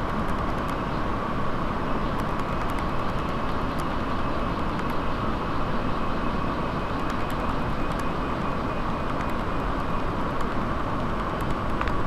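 Rapids of a fast-flowing river rushing over rocks: a steady, even roar of water.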